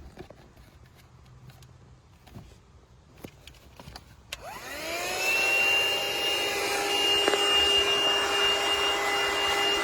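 Portable CHERYLON car vacuum cleaner switched on after a few faint clicks: about four seconds in its motor spins up, the whine rising quickly and settling into a steady high whine over rushing air.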